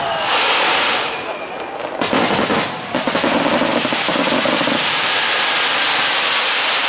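Aerial fireworks bursting: a hiss in the first second, sharp bangs about two and three seconds in, then a long run of rapid crackling as the shells' stars burn out.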